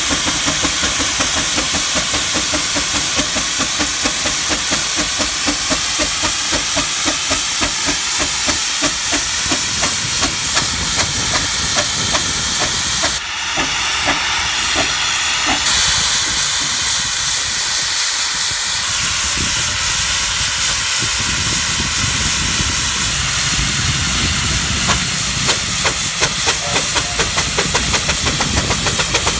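Steam traction engine working under load as it tows a heavy ballast tractor, its exhaust beating regularly over a steady hiss of steam. Just before the middle, a louder hiss lasts two or three seconds.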